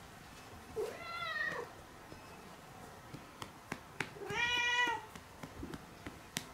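Domestic cat meowing twice, about three seconds apart, each meow rising then falling in pitch, the second louder. It is being patted on the rump, with a few light sharp taps in between.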